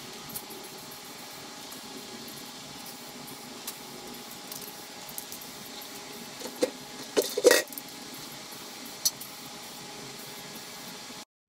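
Steady hiss of an aerosol spray-paint can coating a steel skid plate, with a few short clicks and knocks about seven seconds in.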